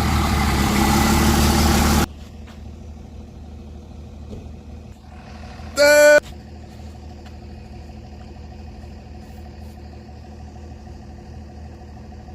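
A loud hissing rush that cuts off abruptly after about two seconds, then a vehicle engine idling with a low steady hum, with one short high beep about six seconds in.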